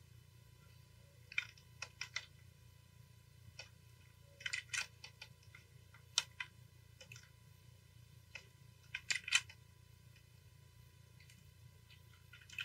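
Small clusters of short clicks and taps from computer input devices at a desk, over a low steady hum.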